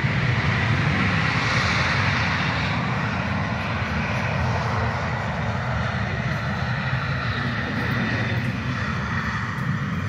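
Boeing 737-700's CFM56-7B turbofan engines running at taxi power: a steady jet noise with a broad hiss, easing slowly toward the end.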